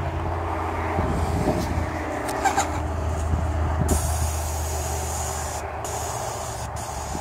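Airless paint sprayer running: the pump gives a steady low hum, and from about four seconds in the spray gun hisses as it fires paint, stopping briefly twice near the end.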